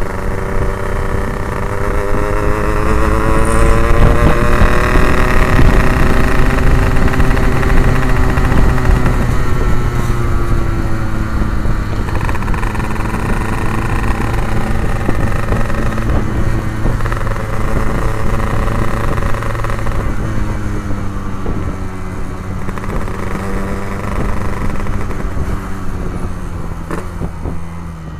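Yamaha RX-King 135cc two-stroke single-cylinder engine running through an Abbox C20 aftermarket exhaust while the motorcycle is ridden. Its note climbs in pitch over the first few seconds, then eases down, rises and falls again, and gets quieter toward the end.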